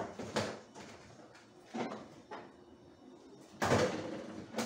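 Knocks and clatters of containers being shifted about inside an open refrigerator while a bowl is taken out, a few separate bumps with the loudest clatter about three and a half seconds in.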